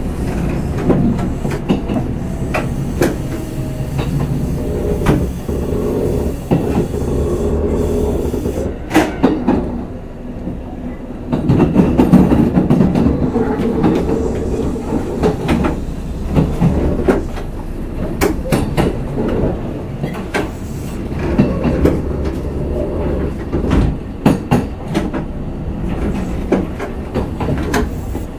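Kintetsu 12200 series limited express electric train running along the track, heard from on board: a steady low rumble of wheels and running gear with irregular rail-joint clicks. The running noise swells louder for a couple of seconds about twelve seconds in.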